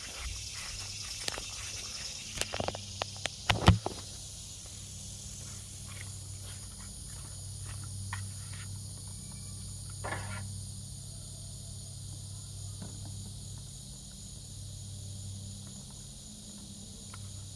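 Light clicks and knocks of hands working at a riding mower's seat safety switch and its wiring, with a cluster of sharper clicks about three seconds in, over a steady low hum and hiss.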